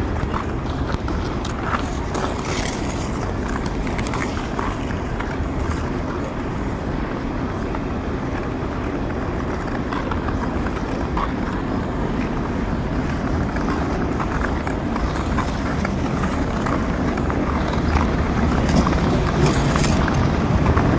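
Double-stack container freight train rumbling steadily across a steel railway bridge overhead, with scattered clicks and clanks.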